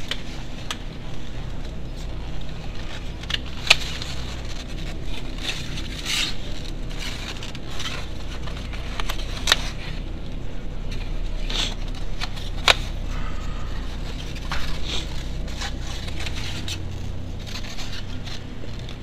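Egg cartons being opened and handled: a string of sharp clicks and scrapes over a steady low hum, picked up by the camera sunglasses' small built-in microphone.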